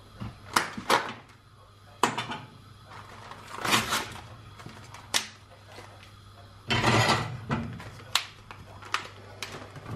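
Plastic meat tray and its peel-off film lid being handled and opened: a run of sharp plastic clicks and short crackles at irregular intervals, the longest crackle about seven seconds in, over a low steady hum.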